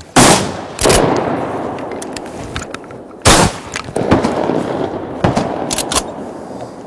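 Several hunters' shotguns firing at ducks overhead, about six shots in two volleys, each blast followed by a long rolling echo. The first shot and the one about three seconds in are the loudest.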